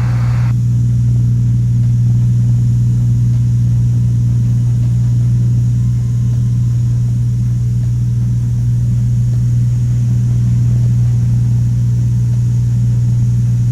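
Cessna 182's piston engine and propeller droning steadily at cruise power, heard from inside the cabin as a loud, even hum.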